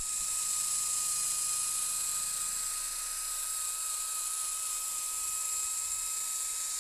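DeWalt cordless drill running at a steady speed, spinning a 3-inch foam polishing pad against a plastic headlight lens to polish out the haze: a constant high-pitched motor whine over a steady hiss.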